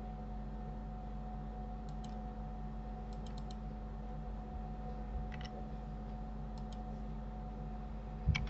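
A few scattered clicks of a computer mouse and keyboard, mostly in pairs with one quick run of four, over a steady low electrical hum; the loudest pair comes near the end.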